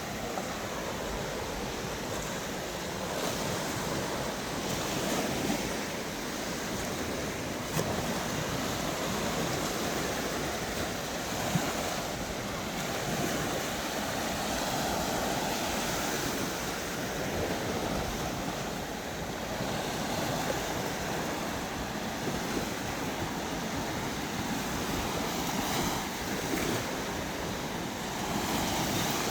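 Black Sea surf washing onto a beach in a steady rush that swells and eases, with some wind on the microphone.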